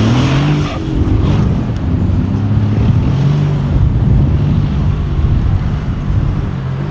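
Mercedes-AMG G63 6x6's twin-turbo V8 running under load as the six-wheeled truck drives through loose sand, its engine note shifting up and down with the throttle.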